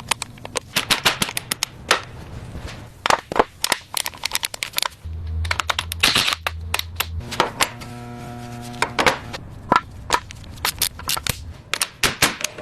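Metal engine parts and tools clicking and clacking in quick, irregular succession during engine assembly. A low hum comes in about five seconds in, and a brief whirring tone follows around eight seconds in.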